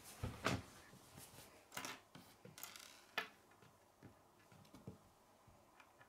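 Small plastic K'nex pieces clicking and clattering on a wooden tabletop as they are picked up, set down and fitted together: scattered sharp clicks, strongest in the first three seconds, then fainter handling.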